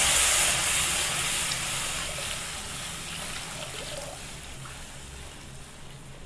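Water poured into a hot pan of sautéed coconut, onion and tomato masala, hissing and steaming loudly at first, then dying away steadily as the pan cools.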